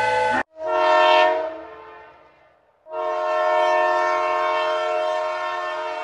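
A locomotive horn sounding a chord of several notes: a short blast about half a second in that rings away, then a long steady blast from about three seconds in. A steam whistle cuts off just before the first blast.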